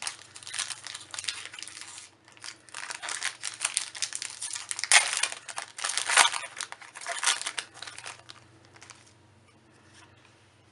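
Crinkling and tearing of a Magic: The Gathering booster pack's foil wrapper as it is torn open, loudest around five and six seconds in, dying away about eight seconds in.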